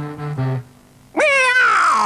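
Short cartoon music notes end about half a second in; then, just past a second in, a loud, wavering yowl starts and slides slowly downward in pitch: an angry cat's screech.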